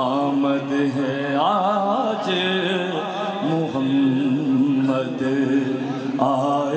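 A man chanting a naat, a devotional song praising the Prophet, through a microphone, with long, wavering, ornamented held notes.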